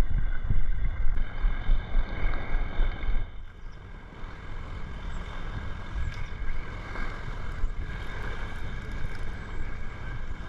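Wind buffeting the microphone, a heavy low rumble for about the first three seconds that then drops to a lighter steady rush.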